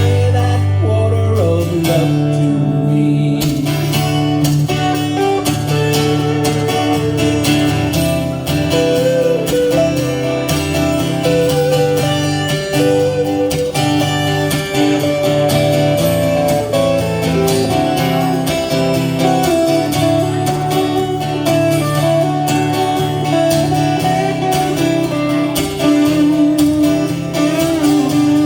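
Live band playing an instrumental break: plucked guitar melody over strummed guitar and a steady bass line.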